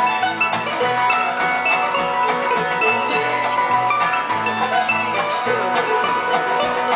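A live bluegrass band playing: acoustic guitar, mandolin and banjo picking over a steady, walking bass line.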